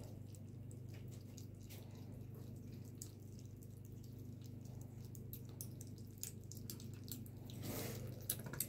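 Kittens eating wet cat food from plastic bowls: faint, quick wet smacking and chewing clicks, a little louder near the end, over a steady low hum.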